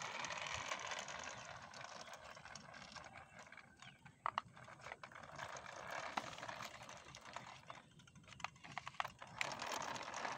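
Remote-control toy car driving on rough concrete: the faint steady running of its small electric motor and wheels, with a few scattered light clicks.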